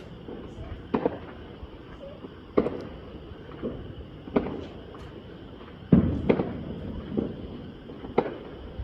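New Year's Eve fireworks and firecrackers going off in irregular single bangs, roughly one a second. The loudest bang comes about six seconds in and has a short rumbling tail.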